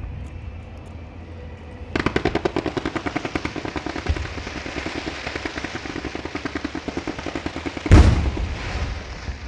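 Firecrackers going off: about two seconds in a rapid, even run of sharp pops starts and goes on for about six seconds, then a single loud firework boom with a lingering tail.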